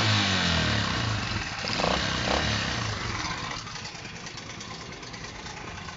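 Small scooter engine running at idle; its low note drops in pitch and fades early on, leaving a steadier, quieter hiss. It is idling while its battery reads a charging voltage.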